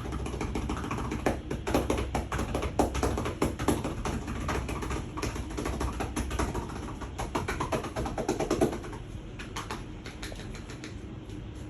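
Rapid drumming of hands on a person's back: a percussive massage of fast slaps and taps that goes on for about nine seconds and then thins out to a few scattered taps.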